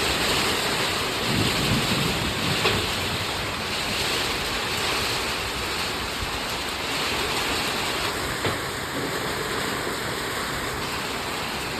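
Strong wind with heavy rain: a steady, loud rushing noise, a little louder in the first few seconds.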